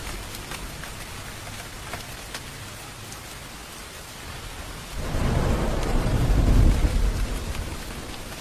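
Steady rain falling, with scattered individual drops ticking. About five seconds in, a low thunder rumble swells up, peaks and dies away near the end.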